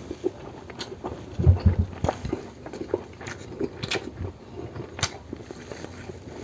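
Close-miked eating sounds: chewing and biting with wet smacks and short clicks at irregular moments, and a louder low thump about a second and a half in.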